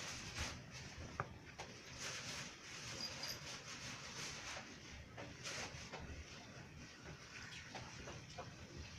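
Newborn kitten making faint scattered clicks and rustles, with one short high squeak about a second in.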